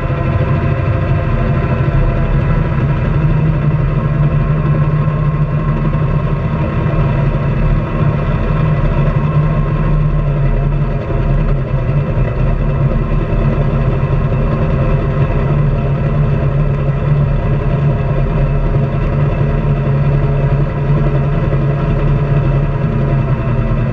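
Honda Pioneer 700-4 side-by-side's single-cylinder engine running steadily as it drives along a gravel road, with noise from the tyres on the gravel.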